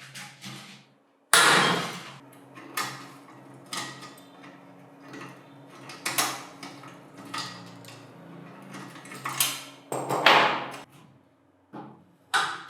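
Irregular knocks and clanks of metal parts and tools being handled and struck, about a dozen of them with short ringing, the loudest about a second in and again near the end, over a faint steady hum.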